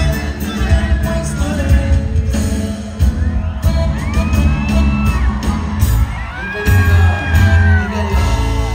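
Norteño band playing live through a large hall's PA: heavy electric bass, guitar and drums, with singing. In the second half, long gliding whoops and shouts ride over the music.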